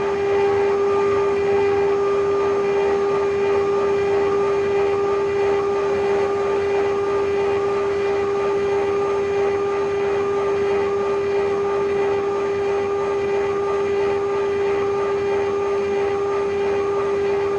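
The spindle of a 6090 CNC router runs with a steady, unchanging whine over a rough cutting noise as it mills copper.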